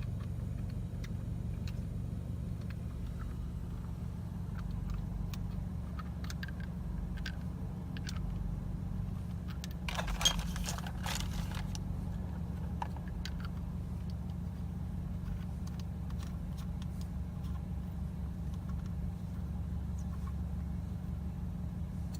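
Small scattered clicks of metal parts being handled while an aftermarket shift knob and its adapter are fitted and screwed onto the shifter, with a brief louder rattle about ten seconds in, over a steady low hum.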